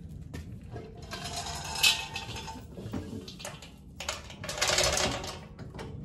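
Pressed-metal concrete mixer drum being tilted back by its handle: metal rattling and scraping in two spells, with a sharp clank about two seconds in.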